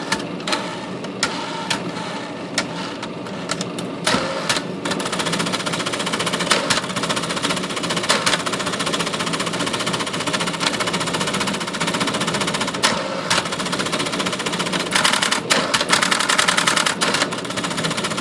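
All-electric Smith Corona typewriter's motor running, with scattered clicks of the mechanism at first and then, from about five seconds in, a dense rapid mechanical clatter as the power carriage return and typing action are tried out after repair of a stripped gear.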